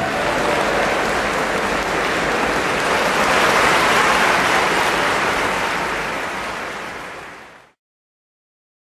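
Large audience applauding, fading out near the end and then cutting off.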